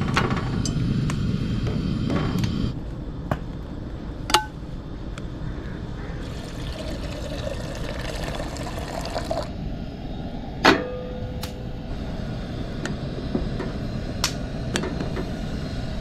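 Water being poured into a pot for camp coffee, with a second pour partway through whose pitch rises as the vessel fills. A few sharp clinks of cookware come in between, the loudest about eleven seconds in, ringing briefly.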